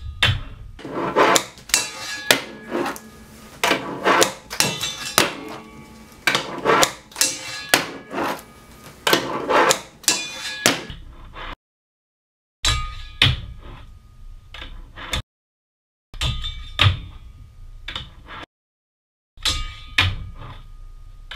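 Handboard, a hand-sized skateboard with trucks and wheels, rolled across a wooden tabletop and popped onto a square metal handrail: repeated sharp clacks and knocks of the deck and wheels striking the rail and wood, with short rolling and sliding scrapes between them. The sound comes in several short takes that cut off suddenly into silence.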